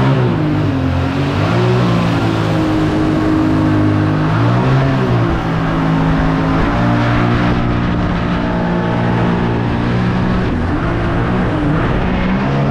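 Mini boat's engine running hard at speed across the water, its pitch dipping and climbing several times as the throttle is worked, over a steady rush of water and wind.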